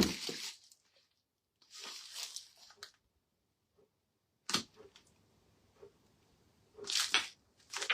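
Packaging being handled and opened: a few short rustles and tears, with one sharp click about four and a half seconds in.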